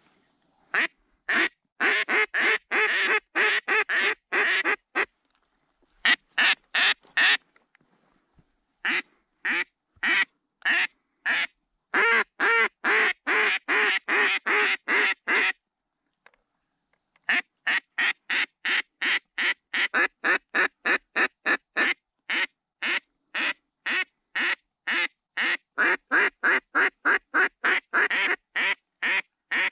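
Mallard duck call blown by a hunter: long runs of evenly spaced quacks, about three a second, broken by a few short pauses, calling to draw mallards in.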